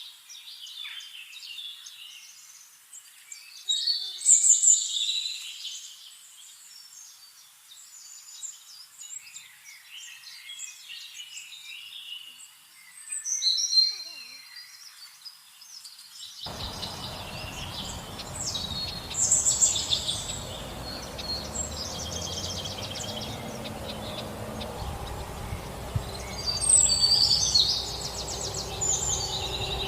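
Several birds chirping and calling in quick, high trills and short notes. About sixteen seconds in, a steady low background hum of outdoor noise comes in suddenly beneath the birds.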